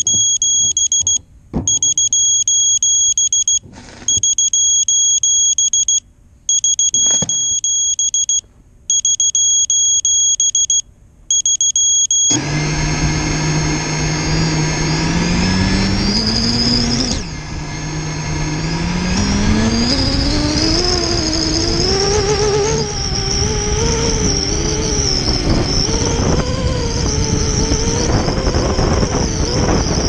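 ImmersionRC Vortex 250 racing quadcopter giving six long electronic beeps. About 12 seconds in, its brushless motors spin up and run loudly, the whine rising, dropping sharply, then climbing again and wavering with the throttle. This is a ground test of a motor the owner suspects is bad.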